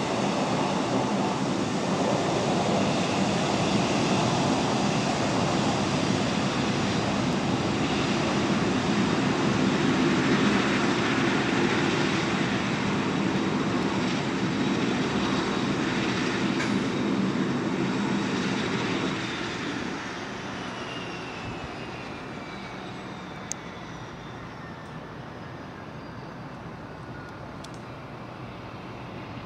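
Boeing 757-200 freighter's twin turbofan engines running at taxi power close by, a loud steady jet noise with a high whine. About 20 seconds in it gets quieter and the whine slowly falls in pitch as the jet moves away.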